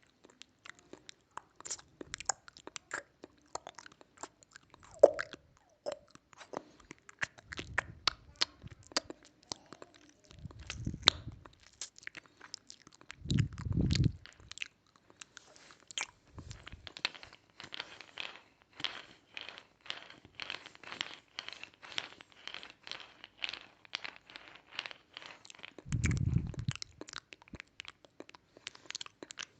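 Close-miked crunching and crackling: a dense run of sharp crisp clicks, with a few deeper thumps about a third of the way in, near the middle and near the end.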